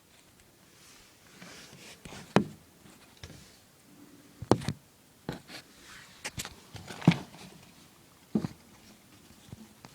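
Scattered sharp knocks and clicks from handling plumbing parts and tools, about five of them a second or two apart, with quiet in between.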